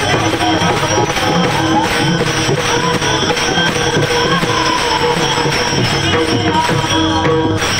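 Varkari devotional singing: a male voice holds a high, wavering alaap over steady rhythmic clashing of taal hand cymbals and a drum.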